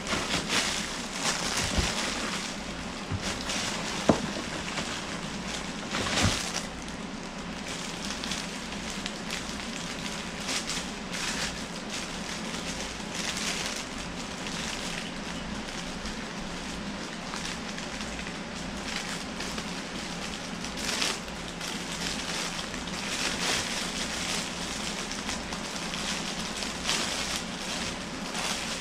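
Clear plastic packaging crinkling and rustling in irregular bursts as it is handled and pulled out of a cardboard box, with one sharp click about four seconds in.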